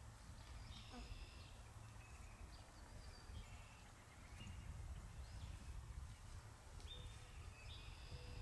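Faint outdoor ambience: a steady low rumble with a few brief, high-pitched bird chirps scattered through it, clustered about a second in and again near the end.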